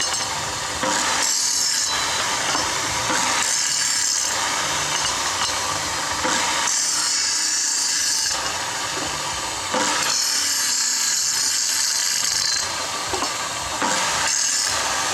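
A power tool working steel in repeated passes. Its hiss swells and eases every two to three seconds over a steady motor tone.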